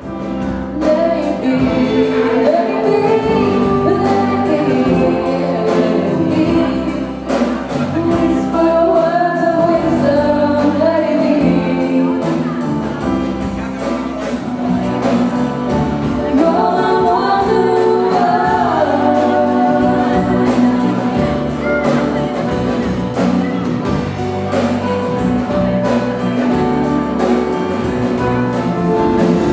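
A live band playing a song, with two women singing into microphones over electric bass, keyboard and acoustic guitar. The music starts up in the first second.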